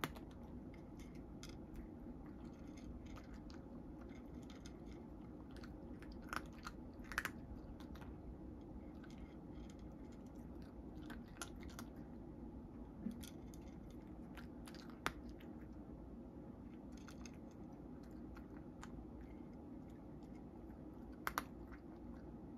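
A cat chewing dry kibble: irregular crisp crunches, a few louder than the rest, over a faint steady low hum.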